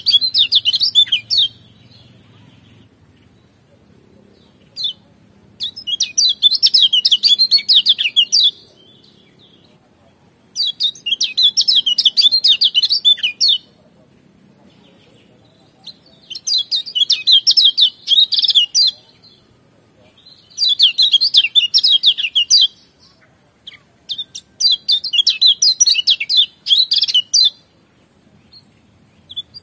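Caged white-eye (kecial kuning, the Lombok 'pleci') singing its fast, varied twittering song in bouts of two to three seconds, about six bouts with short pauses between.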